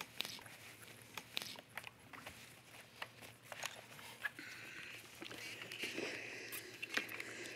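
Faint handling sounds of a clothes iron and knit fabric on a pressing board: scattered light clicks and knocks as the garment is laid out and the iron is set down and pressed, with a faint hiss in the second half.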